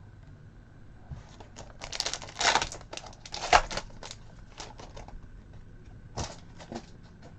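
Trading cards being handled and flipped through: scattered short rustles and taps, loudest about two to four seconds in.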